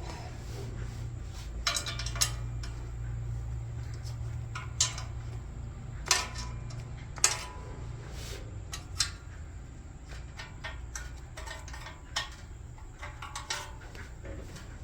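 Hand tools working on exhaust header bolts: irregular metallic clinks and taps of wrenches and sockets against the bolts and header, a dozen or so scattered strikes, over a steady low hum.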